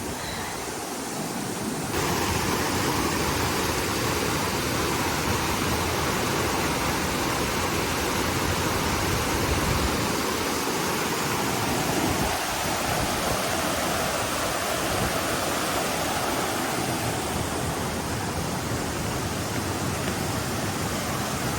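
Rushing water of a rain-swollen mountain stream pouring down small waterfalls, a steady even rush that gets louder about two seconds in.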